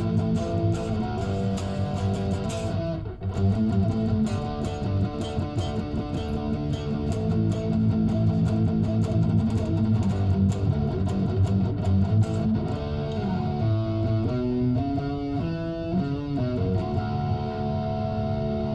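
Fender Thinline Telecaster semi-hollow electric guitar playing sustained chords, with a quick run of changing notes about two-thirds of the way through.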